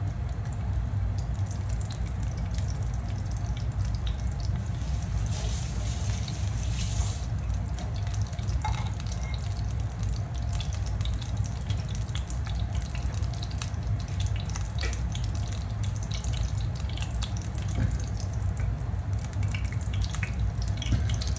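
Stovetop cooking on a gas range: a pan of used cooking oil heating up and a pot of vegetables boiling, giving scattered crackles and pops over a steady low rumble, with a brief louder hiss about six seconds in.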